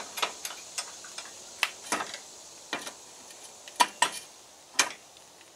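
Irregular metallic clicks and light knocks as a driveshaft and its U-joint yoke are shifted and set in a bench vise, with a few sharper knocks in the second half.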